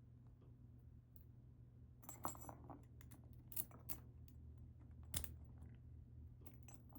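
Small metallic clicks and clinks of a padlock's core and pin parts being handled during disassembly, with a few sharper clicks about two, three and a half and five seconds in, over a faint steady hum.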